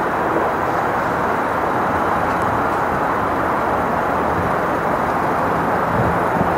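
SEPTA Silverliner electric commuter railcar approaching at low speed: a steady hum and rumble from its wheels and motors.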